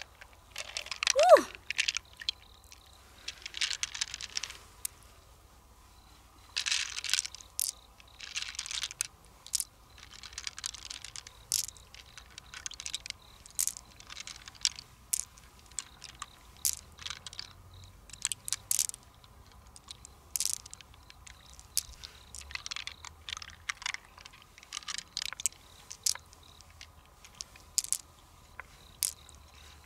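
Pearls being picked by hand out of an opened freshwater mussel: many small clicks as the pearls knock against each other and the shell, with soft wet rustling of the mussel flesh. A short exclamation about a second in.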